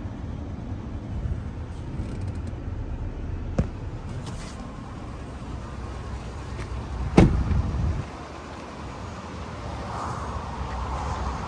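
The truck's 5.3-litre V8 idling with a steady low rumble. There is a sharp click a little after three seconds in and a loud thump about seven seconds in, after which the engine sound is quieter.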